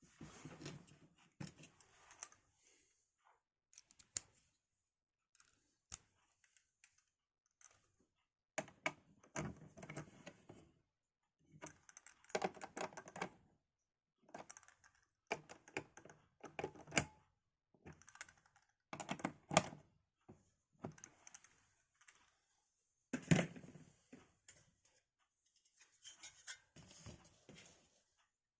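Computer parts being handled and fitted by hand: irregular bursts of small clicks, taps and scraping of plastic and metal, with a few sharper single clicks.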